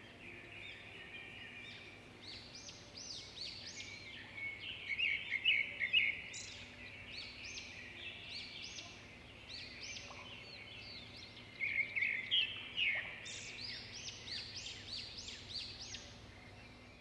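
Small birds chirping and twittering in quick clusters of high chirps, over a faint steady hum.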